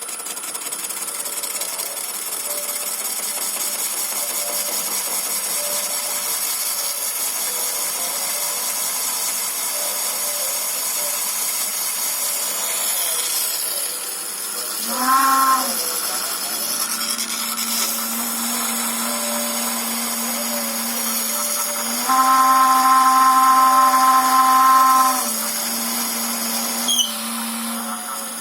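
Metalworking lathe running slowly, its inverter-fed (VFD) motor giving a steady high-pitched whine that comes from the inverter drive. About halfway through, a louder pitched tone joins for about a second, and again for about three seconds a little later.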